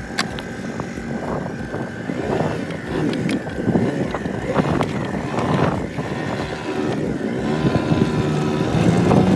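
Small motor scooter engine running, its steady hum growing stronger near the end.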